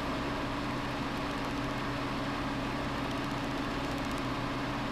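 Steady low hum with a constant hiss, unchanging throughout: background machine noise such as an appliance motor running.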